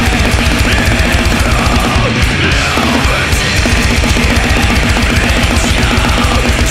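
Grindcore song: heavily distorted electric guitar and bass over very fast, dense drumming.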